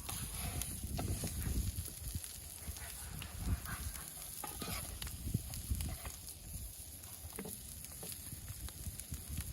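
Food sizzling as it cooks, with scattered short clicks and scrapes, as of a utensil working in the pan.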